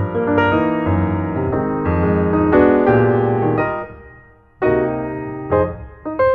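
Piano music, a flowing run of notes that fades away about four seconds in, then a new phrase starts a moment later.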